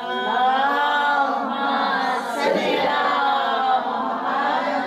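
Several women's voices chanting together in unison, in long, smoothly gliding lines, with a short break about halfway through.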